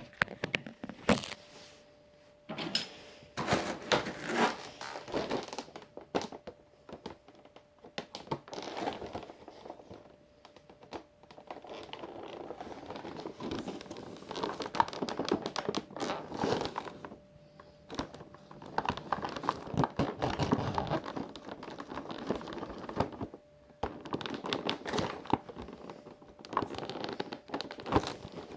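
Knife cutting and prying at plastic packaging, with irregular scraping, crinkling and sharp knocks, the knife making slow headway.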